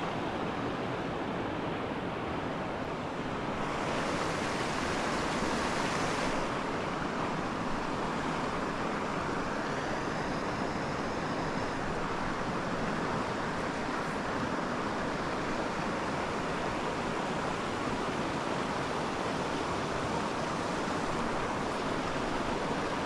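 Small mountain creek's water running steadily, a continuous rushing hiss.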